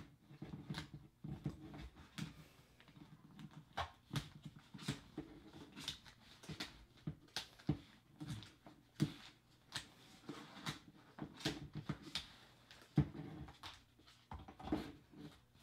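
Faint, irregular clicks and soft knocks of plastic action figures being handled and bumped together in a mock fight.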